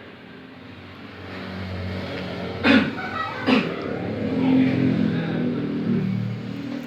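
A man coughs forcefully twice, a little under a second apart, followed by a few seconds of low throat noise. These are deliberate effective-cough efforts to bring up sputum and clear the airway.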